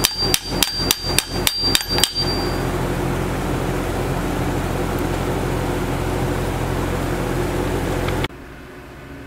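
Light hammer taps on the sheet-metal end cap of a homemade glasspack muffler, about four a second with a short metallic ring, folding the cap's edge over to seal it. The tapping stops about two seconds in, leaving a steady hum that cuts off suddenly near the end.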